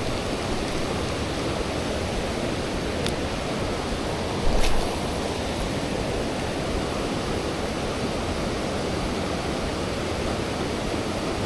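Steady hiss of rushing water, even and unbroken, with one short sharp knock about four and a half seconds in.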